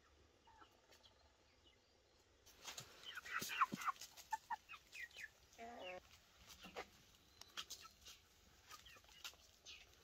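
Chickens clucking and calling, starting about two and a half seconds in after near silence, with short sharp clicks between the calls.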